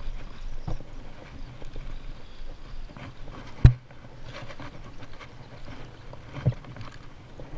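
Handling noise from a spinning rod and reel being cast and then reeled in: scattered light clicks and low thumps, with one sharp, loud knock a little past halfway.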